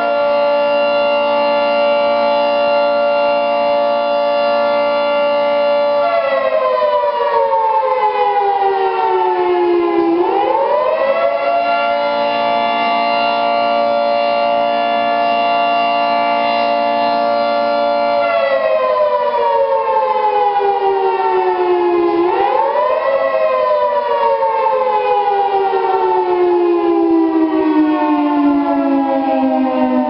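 Federal Signal 3T22 three-tone electromechanical siren sounding a wail (attack signal): its chord rises and holds steady for about six seconds, slides down, rises again and holds about seven seconds, then slides down. About two-thirds of the way through it gives a short rise followed by a long slow fall.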